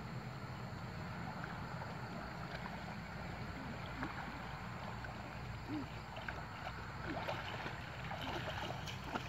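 Water sloshing with many small, light splashes as people wade and swim through a river, over a steady low background noise.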